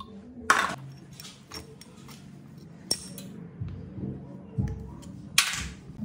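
Clinks and scrapes of hand tools and metal parts being handled on an old electric water pump motor's terminal box. There is a loud scraping clatter about half a second in, a sharp click near the middle, and another scrape near the end, all over soft background music.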